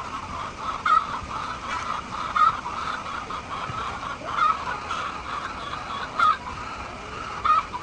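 A flock of laying hens clucking together in a steady chorus, with a louder single call standing out every second or two.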